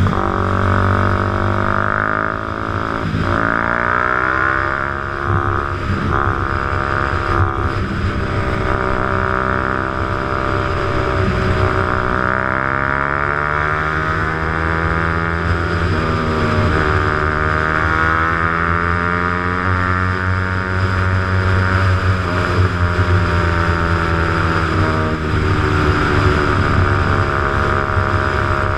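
Motorcycle engine running under way, its pitch rising and falling with the throttle. It climbs a few seconds in, dips around the middle, then rises again.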